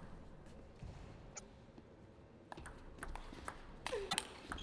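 Table tennis ball clicking off the bats and the table in a fast rally that starts about halfway in, about three hits a second.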